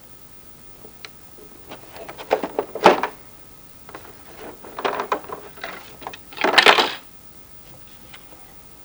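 Plastic being handled in an unboxing: three bouts of clicking and crinkling, the last one about six seconds in being the densest and loudest.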